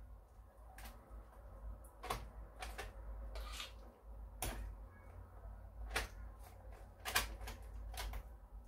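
About a dozen light, irregular clicks and knocks of kitchen utensils while the topping is spread on the Flammkuchen dough, some in quick pairs, over a low steady hum.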